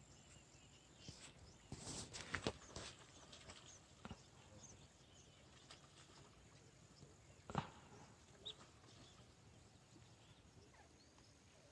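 Near silence in the open air, broken by a few soft knocks and clicks: a cluster about two seconds in and one more past seven seconds. There are faint, brief bird chirps.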